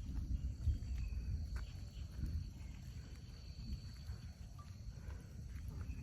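Outdoor campground ambience: a steady high insect drone over an irregular low rumble, with a few faint ticks.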